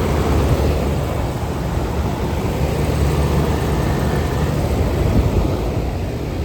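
Outdoor air-conditioning condenser units running: a steady fan rush over a low rumble, without a break.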